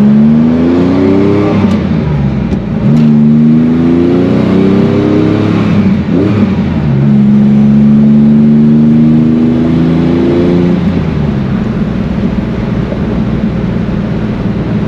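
Rebuilt air-cooled flat-six of a 1965 Chevrolet Corvair Monza 110, with a new cam, heads and aftermarket exhaust, accelerating up through the gears, heard from inside the cabin. The engine note climbs three times, breaking off at two gear changes about two and six seconds in, then eases to a steadier cruise near the end.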